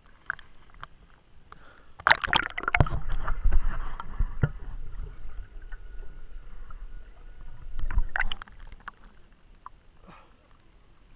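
Lake water splashing and sloshing against an action camera at the surface: a splash about two seconds in as it goes under, then a low muffled underwater rumble and gurgling, and a second splash near eight seconds as it comes back up, followed by gentle lapping.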